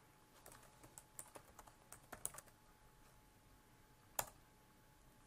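Faint computer keyboard typing: a quick run of light key clicks, then a single louder click about four seconds in.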